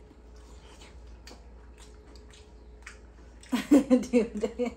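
Small clicks and rustles of people eating a meal of rice and curry by hand and spoon, then about three and a half seconds in a woman breaks into short bursts of laughter.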